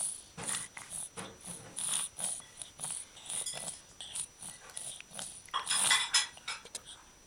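A three-month-old baby with a slight cold making short, noisy breaths and snuffles through a stuffy nose, one after another, with a longer, louder burst about six seconds in.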